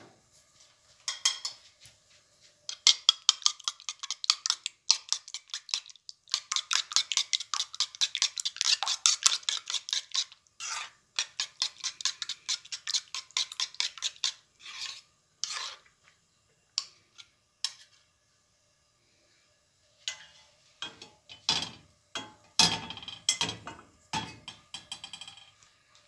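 Eggs being beaten with a metal spoon in a ceramic bowl: rapid clinking of the spoon against the bowl, several strokes a second, in two long runs with a quiet pause of a few seconds between them.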